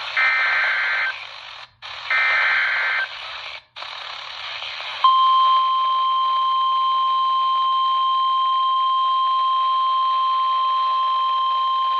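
NOAA Weather Radio emergency alert heard through a weather radio's speaker with static hiss: two bursts of SAME digital header tones, each about a second long with a short silent gap after it, then about five seconds in the steady 1050 Hz warning alarm tone begins and holds.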